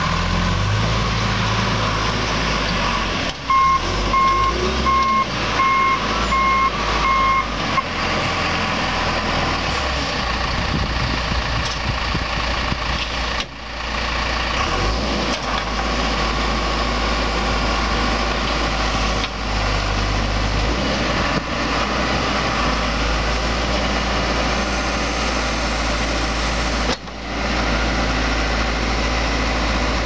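A 2001 John Deere 410G backhoe loader's four-cylinder turbocharged diesel engine running steadily as the machine works. A few seconds in, its reverse alarm beeps about seven times.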